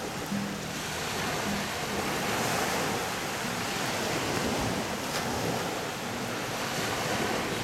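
Sea surf washing onto a beach: a steady rush of breaking waves that swells and eases.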